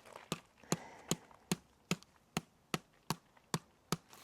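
Hammer blows driving an 8-inch composite landscape spike into hard, gravelly road-base ground, about eleven sharp, evenly paced strikes at roughly two and a half a second.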